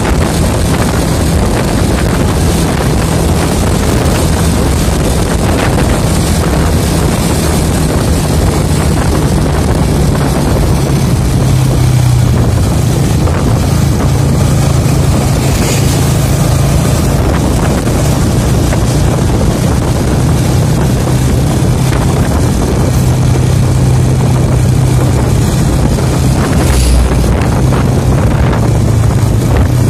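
Engine drone with wind and road rush from driving at speed close behind an intercity coach bus. The engine tone dips in pitch a couple of times as speed changes, and there is a brief thump near the end.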